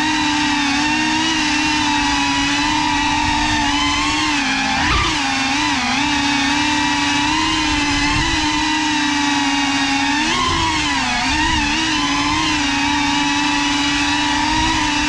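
Cinelog 35 FPV cinewhoop drone's brushless motors and propellers whining steadily, the pitch dipping and rising with throttle about five seconds in and again around ten to twelve seconds in.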